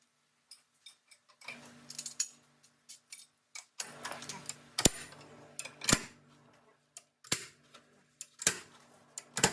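Irregular sharp knocks and clicks of hand work, with several loud strikes in the second half roughly a second apart, over a faint low steady hum.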